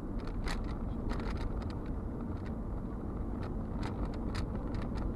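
Steady low rumble of engine and tyre noise inside a moving car's cabin, with a few scattered light clicks.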